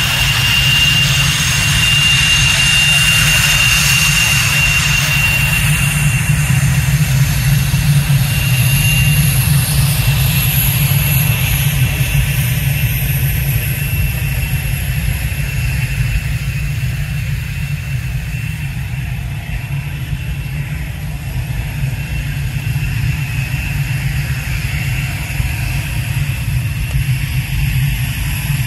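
Swiss Air Force F/A-18 Hornet's twin General Electric F404 turbofan engines running: a steady low rumble under a high whine. The whine fades after about ten seconds as the jet moves away.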